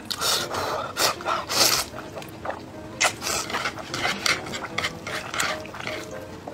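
Spicy instant noodles being slurped into the mouth in a series of loud wet sucking pulls, several a second, with chewing between them.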